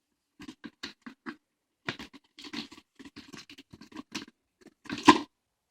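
Plastic toys and their packaging being handled: a string of short rustles, scrapes and light knocks, the loudest about five seconds in.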